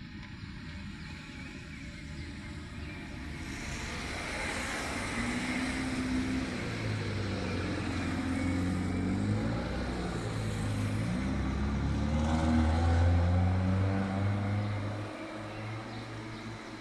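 A motor vehicle's engine running close by, growing louder to a peak about thirteen seconds in, then fading, over a steady background hiss.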